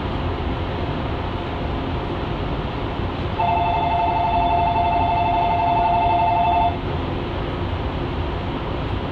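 An electric bell ringing rapidly for about three seconds, starting a few seconds in and stopping suddenly, over the steady hum of the train.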